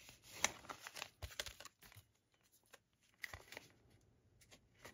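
Faint handling noise from a plastic Blu-ray keep case and its packaging: light clicks and rustles in the first two seconds and a few more about three seconds in.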